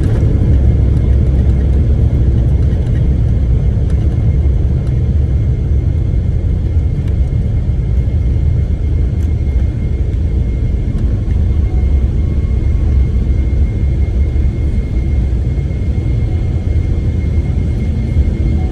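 Boeing 777-300ER's steady low rumble, with a faint, steady high whine above it.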